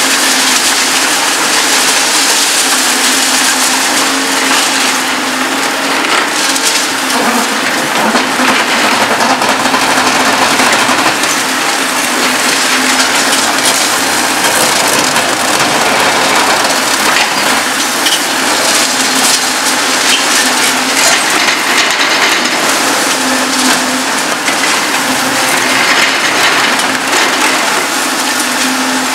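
Demarec DCC-75 concrete shear on a Volvo EC 750E demolition excavator crushing reinforced concrete: continuous cracking and crumbling of concrete, with the excavator's engine humming steadily underneath.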